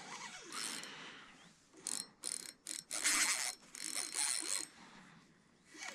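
Fishing reel whirring and ratcheting in short irregular bursts as a hooked common carp is reeled in toward the bank.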